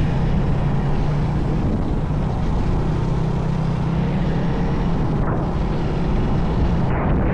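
Steady low rumble of a running vehicle engine with road or wind noise.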